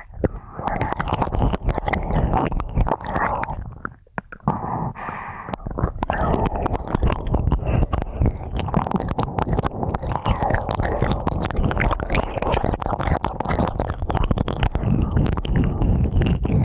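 Close-up ear-cleaning ASMR: a tool scratching and rubbing in a microphone's ear, dense crackling scrapes over a muffled rumble, with a brief pause about four seconds in.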